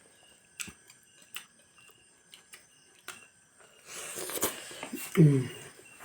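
Scattered light clicks and taps. About four seconds in comes a rustling, crackling noise lasting about a second, with one sharp click, followed by a brief voice.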